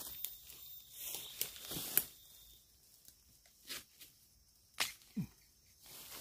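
Rustling and tearing of leaf litter and shoot sheaths, then a few sharp separate snaps as a fresh, water-filled bamboo shoot is worked loose and broken off by hand.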